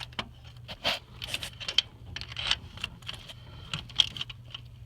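Scattered light metal clicks and scraping as the installation sleeve is worked down over the injector-cup puller tool in the cylinder head of a Ford 6.0 diesel, over a steady low hum.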